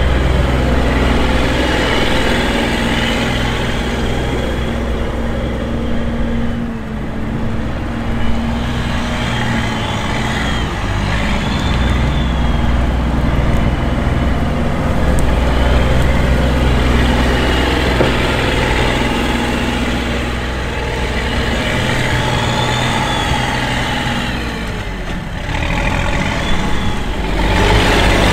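SHERP amphibious off-road vehicle's diesel engine running as it drives across a grass field, the engine note rising and falling.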